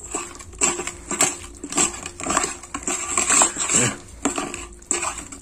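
Wet squelching and slapping of raw marinated chicken pieces squeezed and turned by hand against a stainless steel bowl, about two strokes a second.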